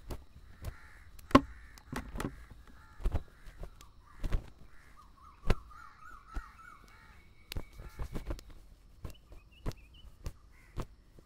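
Crows cawing repeatedly, with another bird warbling midway and small chirps near the end. Sharp clicks or knocks come throughout, the loudest about a second in.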